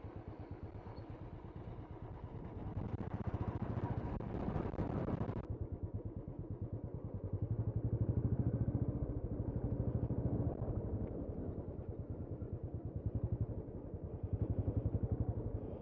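Motorcycle engine running as the bike is ridden, with a steady pulsing note that grows louder about halfway through.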